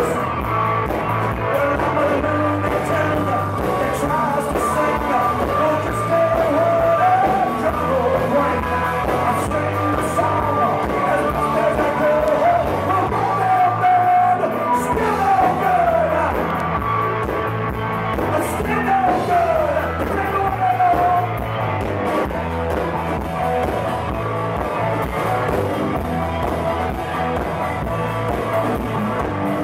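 Live blues-rock band playing, with electric guitar, bass and drums under a lead singer's voice.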